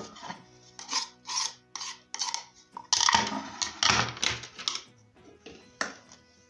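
Kitchen handling sounds: a green plastic spoon scraping grated ginger in a small glass bowl in a run of short scrapes. About three seconds in there is a denser, louder stretch of rubbing and knocks as the glass bowl is set on a wooden plate and the ginger is pressed by hand. Soft background music plays underneath.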